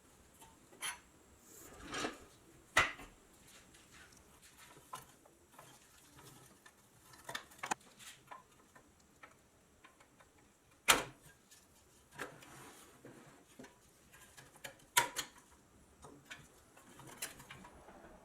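Irregular clicks, taps and knocks of metal tools and small parts being handled on a workbench, a few seconds apart. The sharpest knocks are about three seconds in and about eleven seconds in.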